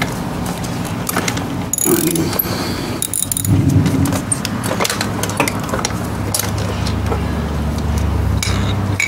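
Socket wrench clicking and metal tools clinking as the 14 mm bolt of a scooter's exhaust bracket is worked loose, with a low steady hum from about a third of the way in.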